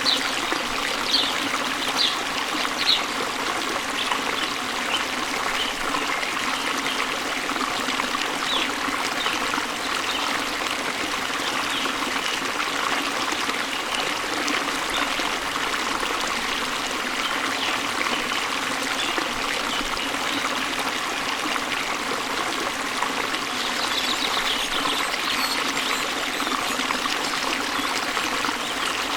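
Waterfall water falling into a stream and flowing, a steady rushing sound, with brief high bird chirps in the first few seconds and again near the end.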